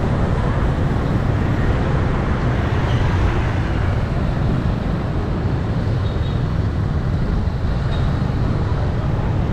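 Steady traffic noise of a busy city street.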